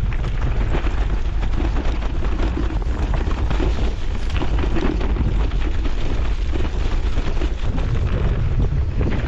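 Wind rushing over the microphone of a rider descending a rough mountain-bike trail on an electric mountain bike, a steady loud rumble with many small knocks and rattles from the bike over the ground.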